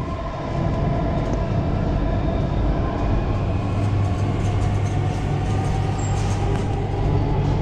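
Chennai Metro train running, heard from inside the carriage: a steady hum and rumble of the train's motors and wheels on the rails.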